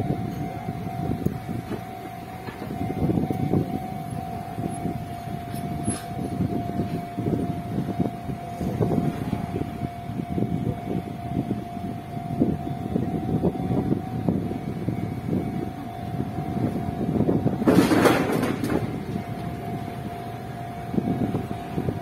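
Road traffic going by in irregular swells, with a steady high-pitched hum underneath; one vehicle passes louder about eighteen seconds in.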